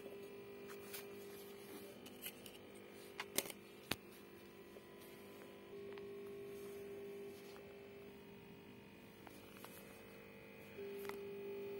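Faint steady hum that gets a little louder twice, with a few sharp clicks about three to four seconds in.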